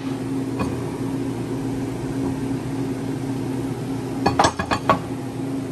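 Metal clinking: a quick run of several sharp metallic clinks about four seconds in, over a steady low hum.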